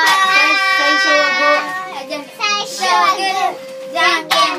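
A young girl's voice sings one long held note for nearly two seconds, followed by short bursts of children's voices. A faint steady tone hums underneath throughout.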